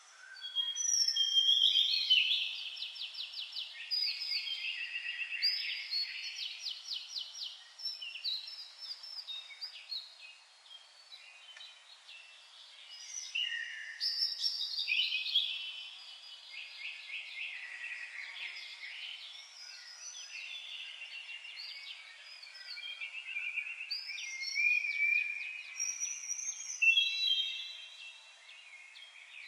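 Several songbirds singing at once, with overlapping whistled phrases and rapid trills. The chorus is loudest about two seconds in and again near the end.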